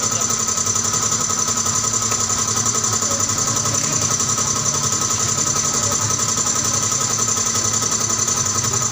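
A small motor-driven machine running steadily, with a fast, even pulsing and a high whine that holds the same pitch throughout.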